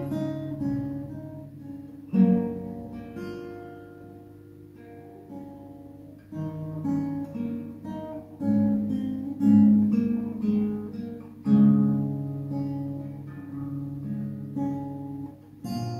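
Steel-string acoustic guitar with a capo, playing a chord passage by itself: a loud chord rings out about two seconds in and fades. From about six seconds in, a busier run of chords follows.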